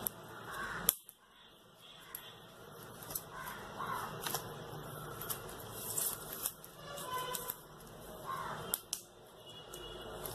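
Light clicks and rattles of an aluminium tripod stand's leg tubes and plastic clips being handled and adjusted, with one sharp click about a second in.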